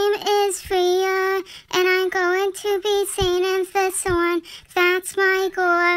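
A high voice singing without accompaniment, short syllables mostly held on one note with a few bends in pitch.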